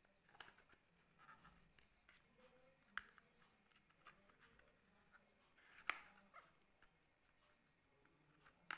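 Fingers prying at the edge of a smartphone's snap-on back cover to get at the battery compartment: faint scraping with a few sharp clicks a few seconds apart.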